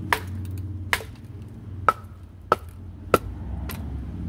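Wooden baton striking the spine of a thin blade wedged in a split hardwood log, driving it down through the wood. Six sharp knocks, about two-thirds of a second apart.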